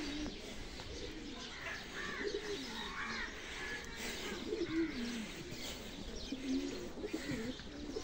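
Many caged birds calling together: low cooing calls that rise and fall, mixed with higher chirps.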